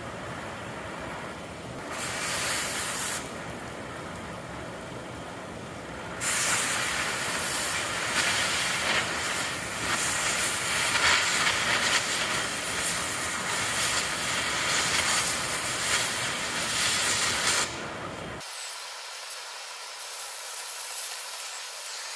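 Oxy-acetylene cutting torch hissing steadily, with a brief louder blast about two seconds in. From about six seconds it turns to a much louder rushing hiss for about eleven seconds as the torch cuts through a steel bolt, then drops back to a softer hiss.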